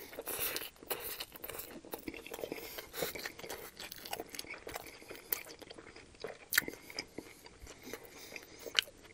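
Close-miked biting and chewing of a panko-crusted fried chicken sandwich with bacon on a toasted bun: a bite at the start, then irregular crisp crunches and mouth clicks as it is chewed.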